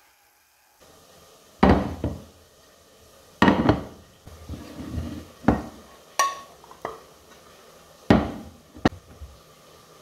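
Dishes knocking: a glass bowl and a ceramic plate clunk against each other and against a countertop as cooked rice is shaped in the bowl and turned out onto the plate. There are about eight sharp knocks, the loudest at roughly two, four and eight seconds in, and one about six seconds in rings briefly.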